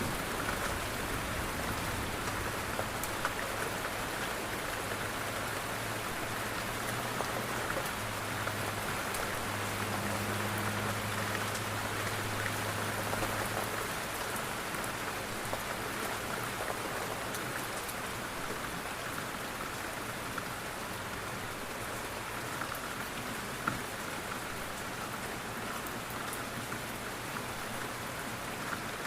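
Steady rain falling on a window, an even hiss with scattered sharper drop ticks, over a low hum that is stronger in the first half.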